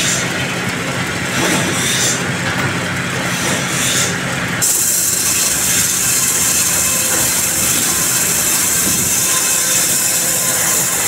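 Sawmill log carriage and saw running while sawing a maçaranduba log, a loud steady machine hum. About four and a half seconds in, the sound changes abruptly to a brighter, hissier noise.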